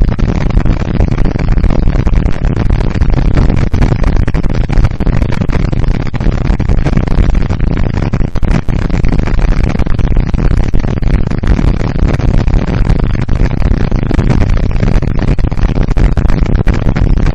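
Wind buffeting the camera's microphone at highway speed, mixed with the steady running of a cruiser motorcycle's engine. The sound is loud and rough and stays that way throughout.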